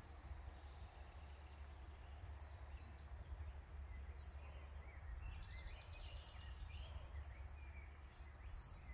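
Faint outdoor ambience: a steady low rumble, faint distant birdsong, and four brief, very high hissy bursts spread through.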